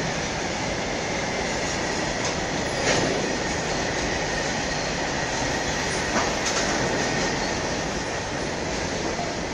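Covered freight wagons of a goods train rolling past close by: a steady rumble of wheels on rail, with sharp wheel clacks about three and six seconds in, and a faint high-pitched whine underneath.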